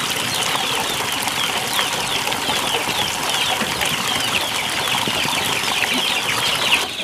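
Many birds chirping: a dense, steady run of short falling chirps over an even background hiss.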